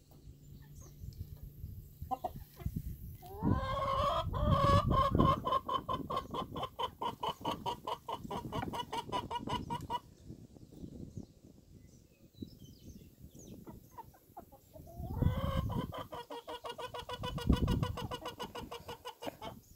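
Young chickens calling: two long, rapidly pulsing calls held at an even pitch, the first starting about three seconds in and lasting several seconds, the second near the end, with quieter clucks between.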